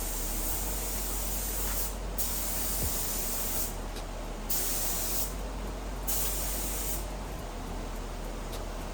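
Automotive paint spray gun hissing with compressed air as coats are laid on, in four bursts a second or two long with short breaks where the trigger is let go, the last ending about two seconds before the end.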